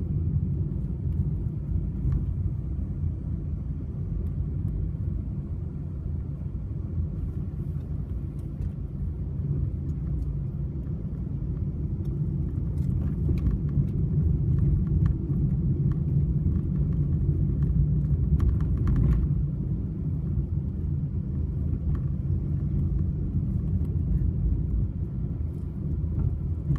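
Honda N-BOX kei car driving up a steep hill: a steady low engine and road rumble that swells somewhat past the middle. Faint ticks and rattles come through now and then, most around halfway through and again about two-thirds through; these are where the abnormal noise the car is being checked for would lie.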